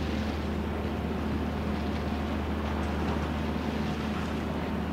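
Small coastal bunker tanker's diesel engine droning steadily as the boat motors past, a constant low hum over a steady background hiss.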